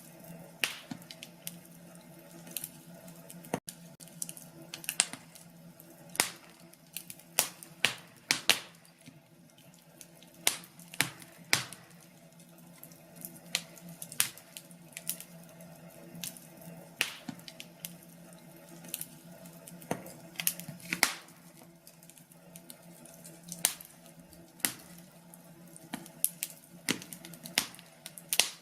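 Wood fire crackling, with irregular sharp pops and snaps, some much louder than others, over a steady low rush of the flames.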